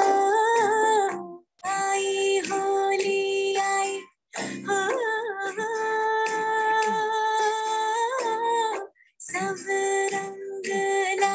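Recorded Hindi film song playing, a woman's voice holding long wavering notes over the accompaniment. The sound cuts out briefly about four times, as audio does over an online video call.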